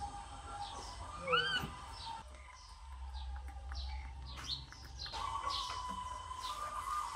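Small birds chirping, many short quick chirps repeated throughout. One brief rising-and-falling squeal stands out about one and a half seconds in.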